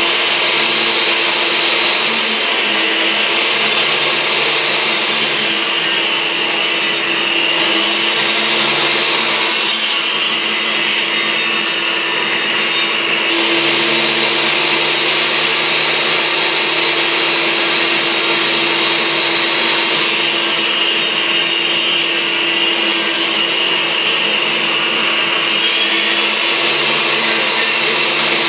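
Table saw running steadily, ripping the mouldings off a length of old skirting board; the hiss of the blade cutting wood grows and fades several times over the steady hum of the saw.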